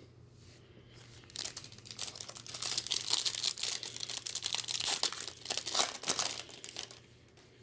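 Plastic foil wrapper of a hockey card pack being torn open and crinkled by hand for about six seconds, in irregular crackling bursts.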